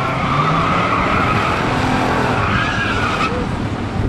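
Muscle car engine held at high revs with loud tire skidding noise from spinning rear tires, as in a drag-strip burnout; the tire noise stops a little after three seconds in.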